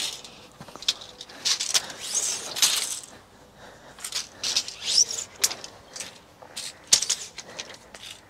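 A steel tape measure being pulled out and handled: a run of irregular clicks and rattles from the blade and its case, with a few short scraping zips as the blade slides out.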